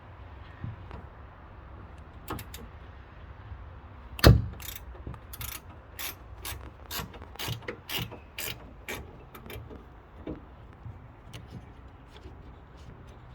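Ratcheting wrench clicking in short runs as a trunk lid hinge bolt is worked loose, with one sharp metallic knock about four seconds in.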